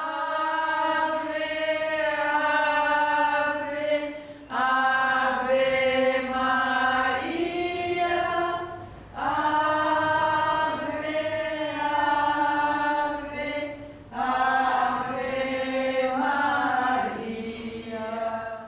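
Nuns' voices singing a slow, held religious chant, in four long phrases with short pauses for breath between them.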